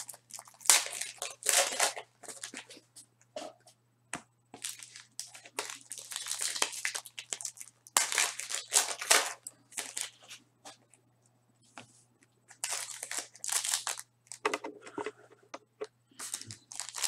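Panini Prizm basketball card packs being torn open, their wrappers crinkling and crackling in uneven bursts with short pauses between, over a faint steady hum.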